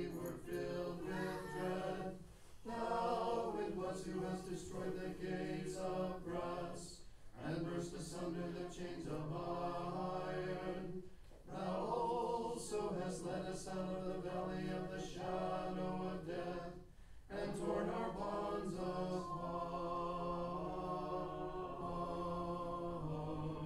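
Unaccompanied choir chanting Orthodox Vespers hymns, in sung phrases separated by short breaks.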